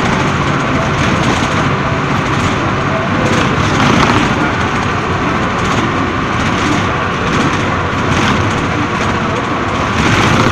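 Steady road and engine noise heard from inside a vehicle's cabin while it drives fast along a road.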